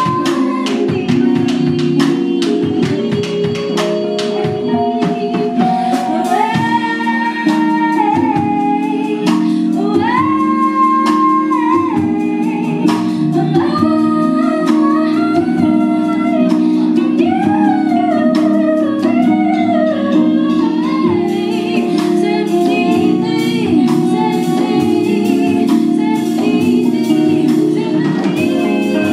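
A woman singing long, sliding held notes over a live band jamming, with bass, bongos, drum kit and saxophone, and percussion strikes running steadily underneath.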